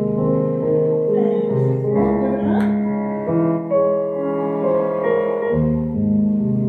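Slow solo piano music with held chords changing about once a second: accompaniment for a ballet adagio.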